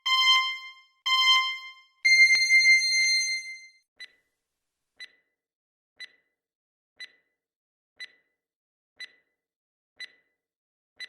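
Quiz countdown timer sound effect: two short electronic beeps a second apart, then a longer beep, then soft ticks once a second.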